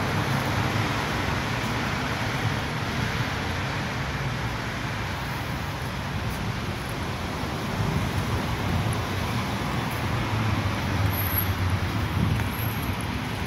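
Steady road traffic noise: a continuous low rumble of cars passing on a city street.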